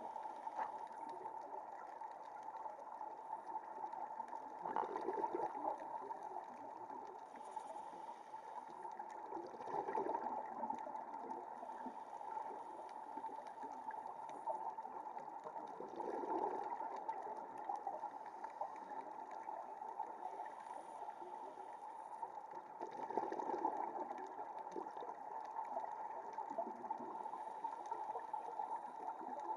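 Underwater sound picked up through a camera's housing: a steady hum, with bubbling swells every five or six seconds from a scuba diver's regulator exhaling.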